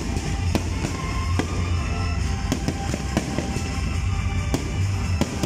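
Aerial fireworks bursting overhead: a string of sharp bangs at uneven intervals, over music with a steady low bass.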